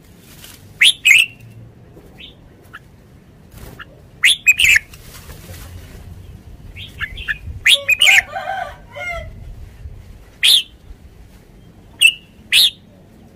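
Red-whiskered bulbul singing: loud, short, sharp high notes, mostly in pairs, every few seconds, with a longer warbling phrase around the middle.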